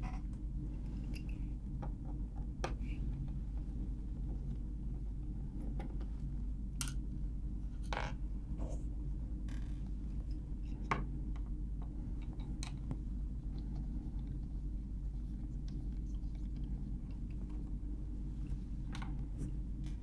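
A small Torx T5 screwdriver is backing screws out of a laptop's bottom panel. It makes scattered light clicks and ticks of the driver and the tiny screws, over a steady low hum.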